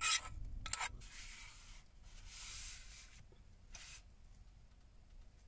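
A spatula scraping cooked vegetables out of a frying pan into a slow cooker crock: several short rasping scrapes and rubs over the first four seconds, then quieter.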